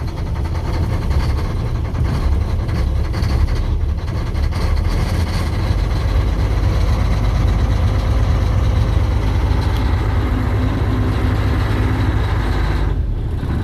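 Semi-truck diesel engine running rough just after a cold start in sub-freezing cold, struggling to stay running.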